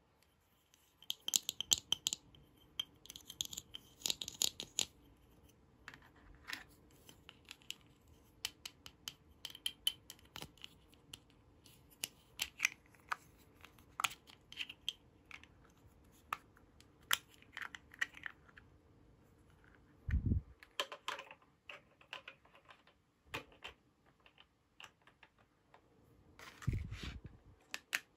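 Miniature plastic Licca-chan doll-kitchen pieces being handled: a run of light plastic clicks and taps, with plastic bag rustling a second or so in. Twice there is a duller thump, about two-thirds through and near the end.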